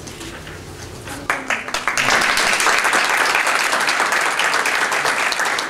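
Audience applauding: a few scattered claps about a second in, swelling to full, steady applause from about two seconds on.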